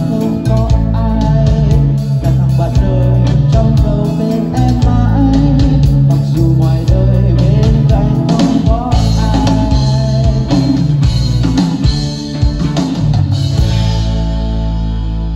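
Band music in an instrumental passage with guitar and drums, settling into a long held final chord near the end.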